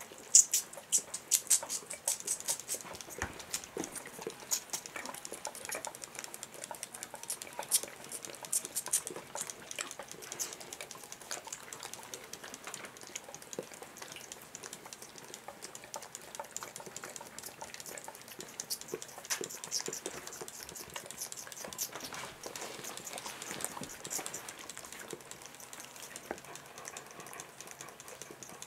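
Close, wet sucking and licking: an orphan lamb sucking milk from a bottle teat while a Maremma sheepdog licks up the drips at its mouth, in rapid irregular little smacks and clicks, busiest in the first ten seconds.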